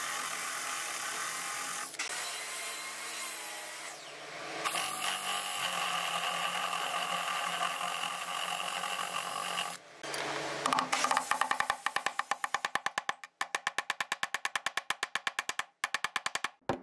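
Cordless drill running steadily as it bores into a wood panel, then, from about ten seconds in, a quick, even run of light hammer taps, about five a second, driving a round metal fitting into the drilled hole.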